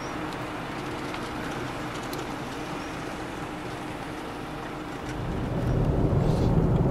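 Vehicle road noise: a steady hiss and hum, then about five seconds in a louder, low rumble of a car driving on the highway, heard from inside its cab.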